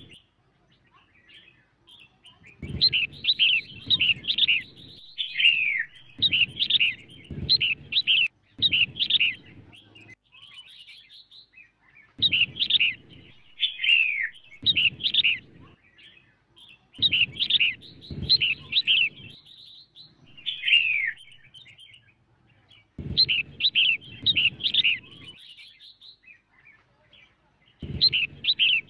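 Female red-whiskered bulbul singing: repeated phrases of quick, bright chirping notes, some ending in a falling slur, with pauses of a second or two between phrases.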